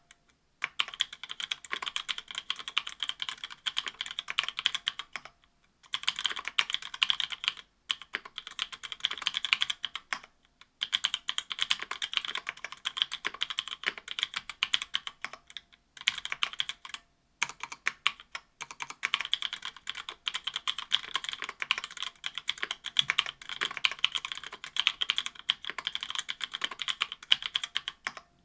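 Fast typing on an Octagon V3 mechanical keyboard with stock Kailh Pro Burgundy linear switches (70 g) in an aluminum plate under GMK keycaps: a dense, continuous clatter of keystrokes broken by a few short pauses.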